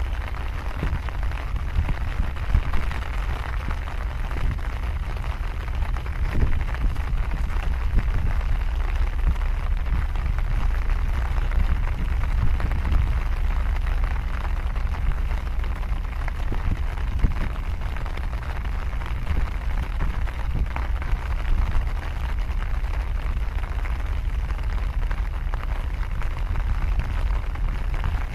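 Wind buffeting the microphone: a steady, fluttering low rumble with small gusts, over an even hiss.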